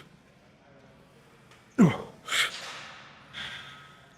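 A man grunting and breathing hard through a heavy leg press set: a short grunt falling in pitch about two seconds in, followed by sharp hissing exhales, with another grunt starting at the very end.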